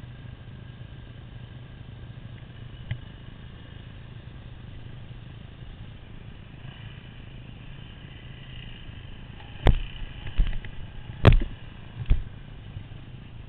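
Dirt bike engine running steadily at low throttle, heard from a helmet-mounted camera, with four sharp knocks in the last few seconds as the bike goes over rough trail.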